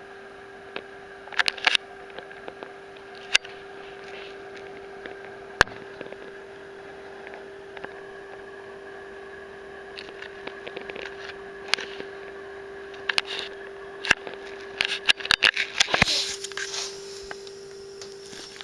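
Handheld camera handling noise: scattered sharp clicks and knocks over a steady hum, with a dense run of knocks and rustling near the end as the camera is moved.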